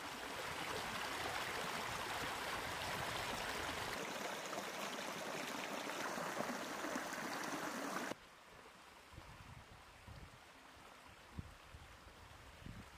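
Small woodland stream running over stones, a steady rushing of water. About eight seconds in it cuts off abruptly, leaving a much fainter trickle with a couple of faint knocks near the end.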